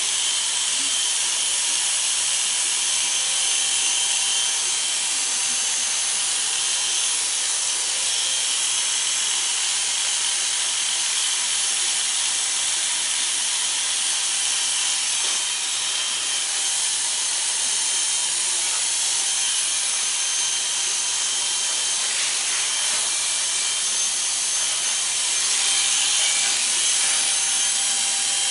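Corded electric hair clippers buzzing steadily, the blades shearing hair very short on the side and back of a head.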